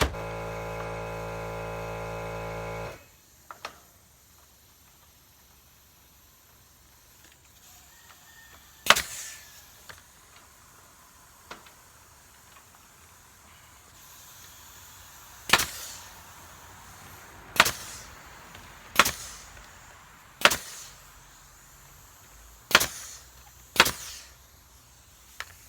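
A steady pitched musical tone for about three seconds, then about seven sharp snaps spaced a second or more apart.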